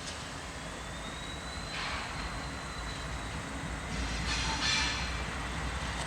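A train rolling along the rails with a steady low rumble and a faint thin high whine that rises, then holds. Bursts of clatter come about two seconds in and again around four to five seconds.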